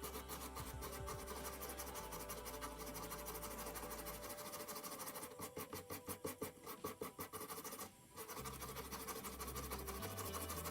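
Abrasive rubbing on the metal case of a rusty Zippo lighter, in quick back-and-forth strokes, most distinct at about five strokes a second some five to seven seconds in, with a brief pause near eight seconds.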